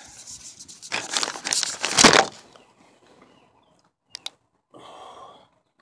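A phone's microphone is being rubbed and handled, giving a loud crackling rustle for about two seconds. About four seconds in there are two sharp clicks, then a short, softer rustle.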